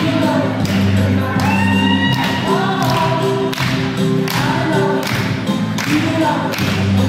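A song playing: singing voices, with choir-like backing vocals, over steady bass notes.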